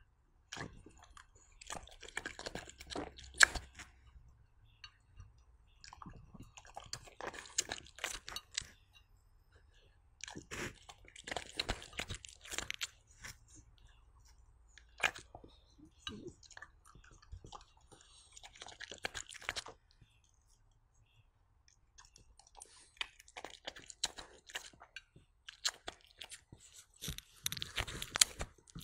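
A dog chewing sweet potato, in about seven bouts of quick, sharp bites, each lasting a second or few, with short pauses between them.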